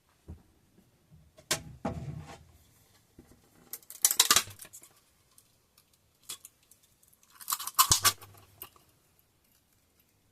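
Small hard objects being handled: scattered light clicks and three short rattling, scraping bursts, the loudest about four seconds in and near eight seconds.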